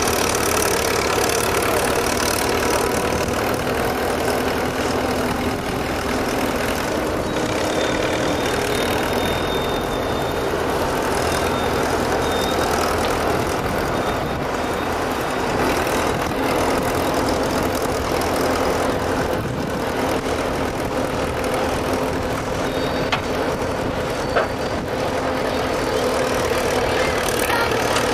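Engine of a vintage Menck M40 cable excavator running steadily under work as it digs with its backhoe bucket, with a couple of short sharp knocks near the end.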